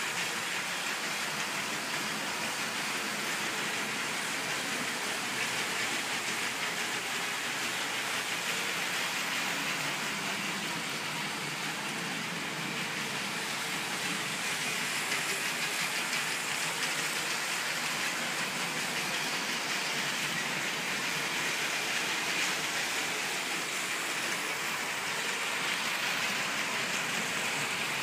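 Lego model trains running on the layout's track, their small electric motors and wheels making a steady whir.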